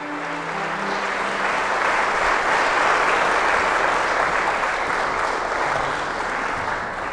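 Audience applauding a string orchestra, the clapping building to a peak about three seconds in and dying away near the end. The orchestra's last chord fades out under the first claps.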